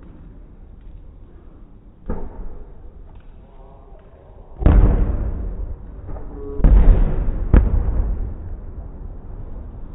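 Fireworks shells bursting: a lighter bang about two seconds in, then two heavy booms, one about halfway through and another a couple of seconds later, each rumbling away slowly, with a sharp crack between them.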